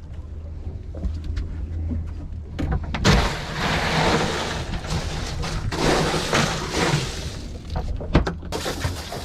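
Blackfin tuna pushed into an ice-and-salt-water slurry in a boat's fish box: from about three seconds in, several seconds of ice and water churning and sloshing. Near the end the hatch lid comes down with a sharp knock. A steady low hum runs underneath.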